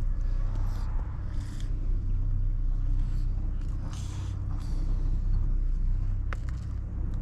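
A steady low engine hum runs throughout, with a few short rustling scrapes and one sharp click about six seconds in.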